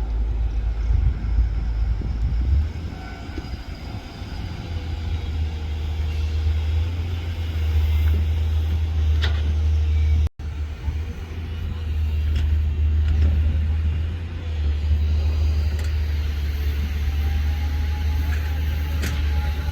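Heavy diesel engine of an Ashok Leyland 12-wheeler tipper truck running with a steady low rumble, dropping out for an instant about halfway through.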